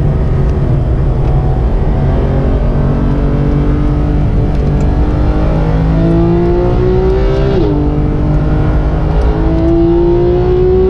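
Porsche 991.2 GT3's naturally aspirated 4.0-litre flat-six under full throttle, heard from inside the cabin. The engine note climbs steadily as it revs through a gear, drops sharply with an upshift about three-quarters of the way in, then climbs again.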